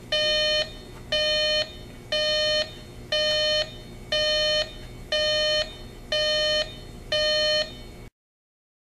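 Jensen JCR-260 alarm clock's alarm beeping: a steady run of identical electronic beeps, about one a second. The beeping stops abruptly near the end.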